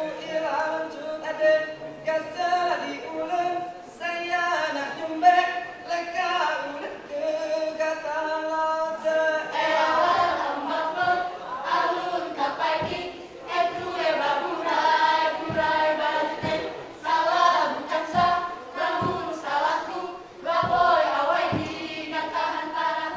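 A group of Rampai Aceh dancers singing in unison with no instruments, the chant rising and falling in short phrases. From about halfway through, sharp percussive hits of the dancers' body percussion fall roughly once a second over the singing.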